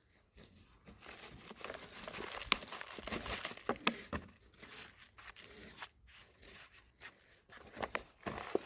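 Dry rustling and crackling as something is handled, with scattered sharp clicks, busiest a couple of seconds in.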